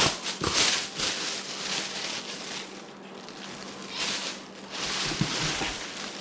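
Packaging rustling and crinkling in irregular bursts as a boxed intercooler is unpacked, over a faint steady hum.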